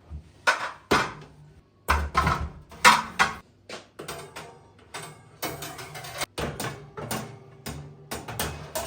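A quick, irregular run of knocks and clatters from kitchen handling: dishes, utensils and cupboard or drawer doors being moved and set down.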